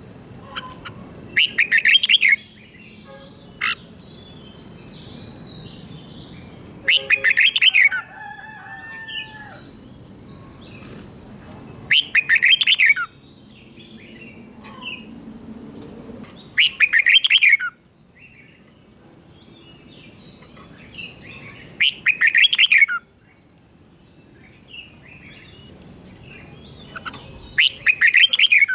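Red-whiskered bulbul singing its short, loud 'double' (เบิ้ล) song phrase six times, about once every five seconds, with softer chirps and calls between the phrases.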